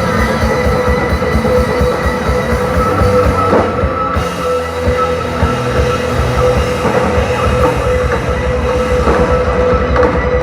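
Loud live music: held high tones over a fast, steady low beat, continuing without a break.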